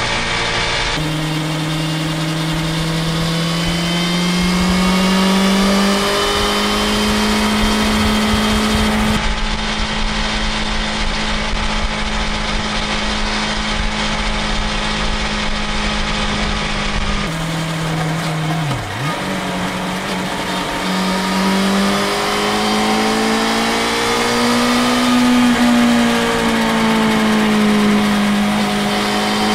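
BMW S1000XR's inline-four engine and exhaust running at highway speed, about 100 km/h, recorded on the moving bike. The engine note holds steady at times and rises under acceleration, with a brief dip in pitch about 19 seconds in. Wind noise runs underneath.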